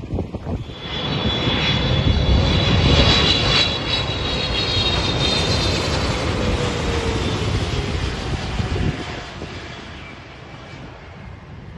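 Boeing 777F cargo jet passing low and landing, its twin GE90 turbofan engines whining loudly. The sound swells over the first couple of seconds, drops in pitch as the plane goes by, and fades about nine seconds in as it rolls out down the runway.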